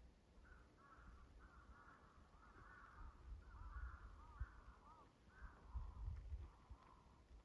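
Faint bird calls: a steady stream of short, arched chirping notes, with a faint low rumble underneath at times.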